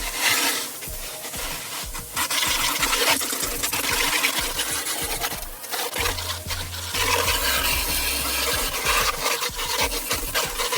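Scraping and rubbing as built-up debris is cleared out of the base of a heat pump's outdoor condenser unit, an irregular noise full of small clicks. Background music with a low bass comes in about halfway through.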